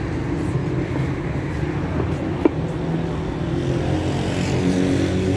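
City street traffic: a steady hum of passing car and motorbike engines, swelling toward the end, with one sharp click about halfway through.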